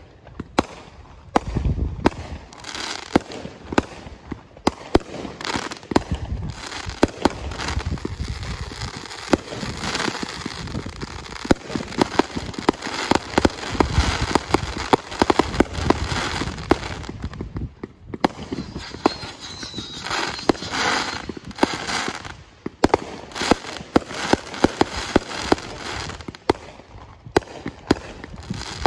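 Aerial fireworks launching and bursting in quick succession: dozens of sharp bangs, with a continuous crackle between them from glittering stars. The bangs and crackle thin out briefly twice in the second half, then pick up again.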